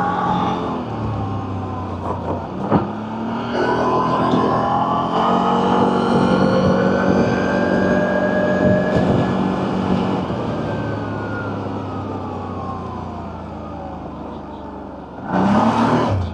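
CFMoto CForce 1000 Overland ATV's V-twin engine running under throttle, its pitch climbing for several seconds and then falling slowly as the machine slows. A single sharp knock comes about three seconds in, and a sudden louder noise cuts in near the end.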